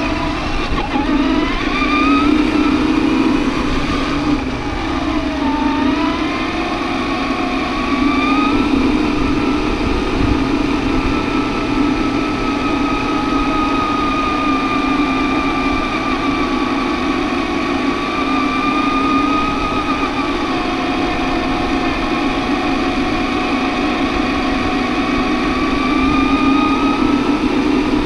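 Electric drive motor and gears of an RC4WD Desert Runner 1/10 scale RC truck whining as it drives, the pitch rising and falling with the throttle.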